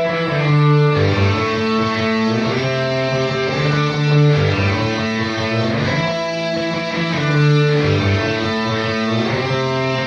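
Instrumental music led by guitar played through effects, over low bass notes that change every second or two.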